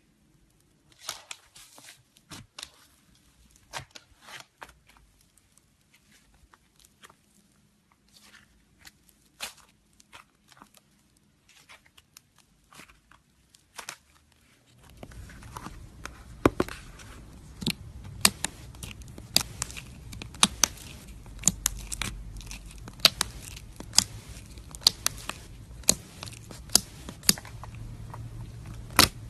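Slime being squeezed and stretched by hand, making sharp crackling pops: sparse at first, then more frequent over a steady hiss from about halfway through.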